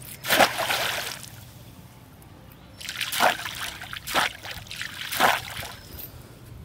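Pond water splashing as a chain-weighted fishing line is thrown in, with one splash near the start. Then four or five shorter splashes and sloshes come as the chain is dragged back through the shallow water.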